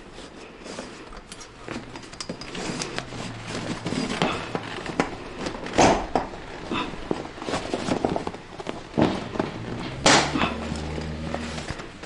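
Rustling of the kayak's fabric skin and knocks of aluminium frame tubes as the stern spreader of a Harpoon 4.5 hybrid kayak is worked into place by hand inside the hull. Small knocks and clicks are irregular, with louder knocks about six and ten seconds in.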